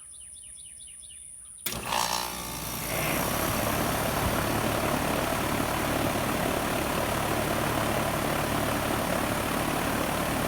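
2011 Nordyne central air-conditioner condensing unit starting up: a sudden click about a second and a half in as it kicks on, then the compressor and two-blade condenser fan come up to speed within a second and run steadily. Birds chirp faintly before it starts.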